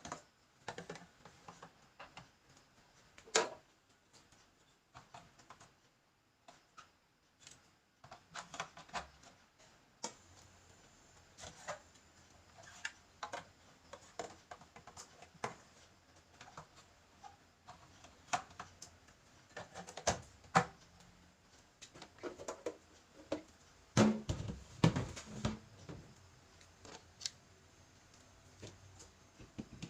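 Irregular light clicks, taps and knocks of small objects and plastic parts being handled during fridge cleaning, with a burst of louder knocks a little over three-quarters of the way through.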